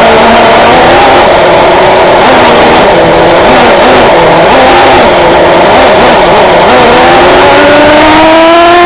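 Traxxas Jato 3.3's two-stroke TRX 3.3 nitro engine running loud, its pitch wavering up and down, then climbing steadily over the last two seconds as it revs up.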